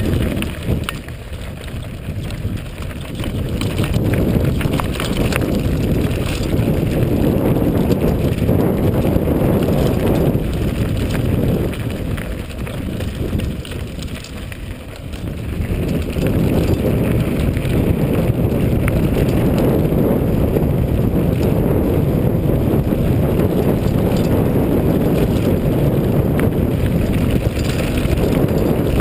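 Mountain bike descending a rough gravel dirt track at speed: a steady low rumble of wind on the microphone over the crunch of tyres and the rattle of the bike on stones. The rumble eases off briefly about a second in, and again from about twelve to fifteen seconds in.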